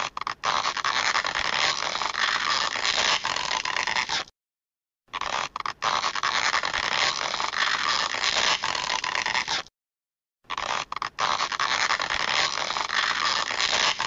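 Stretching sound effect: a scraping, creaking stretch lasting about four and a half seconds, played three times over with a short silent gap between plays.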